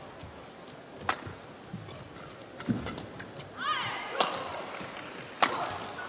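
Badminton rally: rackets striking the shuttlecock with sharp cracks, three in all, mixed with the thuds of players' footwork and a brief squeak of court shoes about midway.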